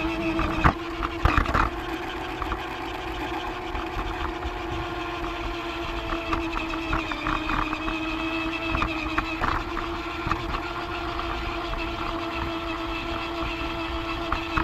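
Toy train's small electric motor running with a steady whine, over an irregular clicking and rattling of the train on its track, with a few louder clacks about a second in.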